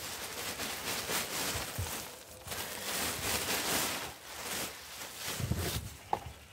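Black plastic bin bag crinkling and rustling as grass clippings are shaken out of it into a plastic compost bin.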